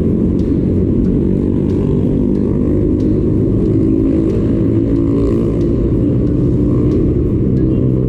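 Steady low rumble of wind and road noise on a handlebar-mounted camera's microphone while riding a mountain bike along a city road, with car traffic around.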